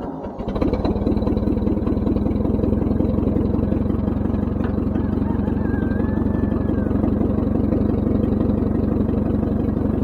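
Ford 9N tractor's four-cylinder flathead engine running with a steady, even beat, settling into its rhythm about half a second in after starting.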